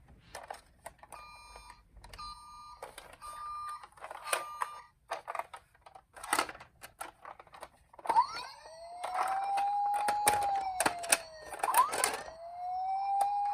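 Toy emergency-vehicle minicar sirens. First a faint two-tone siren alternating between two steady pitches, then, about eight seconds in, a louder siren that rises, holds and falls off, twice. Sharp clicks and knocks are scattered through it.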